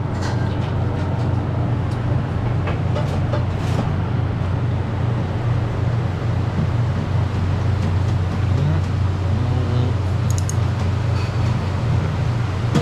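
Steady low background rumble, like road traffic, with a few faint clicks.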